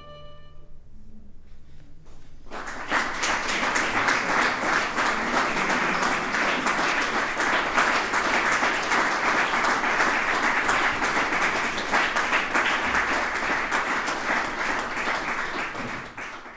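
Audience applause: many people clapping together, starting suddenly about two and a half seconds in after the last held notes of the music die away, then steady until it fades out at the very end.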